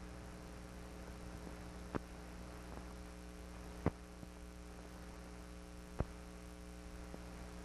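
Steady low electrical hum with faint hiss, broken by three sharp clicks about two seconds apart: the background noise of an old film transfer that carries no live sound.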